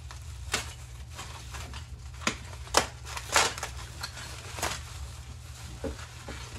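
Loose metal gun parts clinking and knocking as they are handled, with the crinkle of the plastic bag they are wrapped in; about six sharp clinks spread through, the loudest near the middle. A steady low hum runs underneath.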